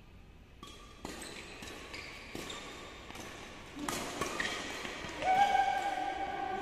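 Badminton rackets striking a shuttlecock in a rally, a few sharp hits ringing in a reverberant hall. About five seconds in, a loud, long, steady high squeal begins and holds.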